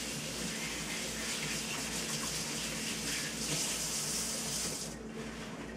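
Kitchen tap running as hands are rinsed under it, a steady hiss of water that shuts off about five seconds in.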